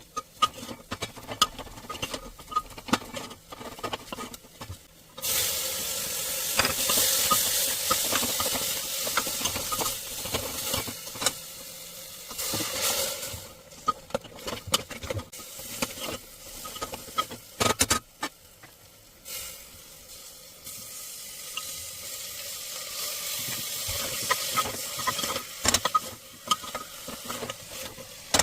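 Chicken frying in a pan, with a sizzle that starts suddenly and loud about five seconds in and eases off later. Throughout, a spatula clicks and scrapes against the pan as it is stirred.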